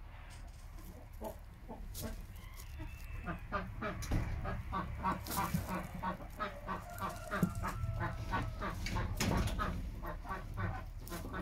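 Brown laying hens clucking: a quick run of short clucks, several a second, that starts about three seconds in and grows louder.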